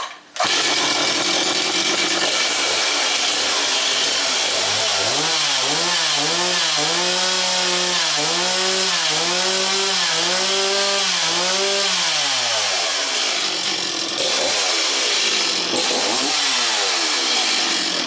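A 2005 Stihl MS260 two-stroke chainsaw runs loudly at high revs for a check that the bar oiler is throwing oil off the chain. It comes up to speed about half a second in, and through the middle of the run its engine note rises and falls about once a second.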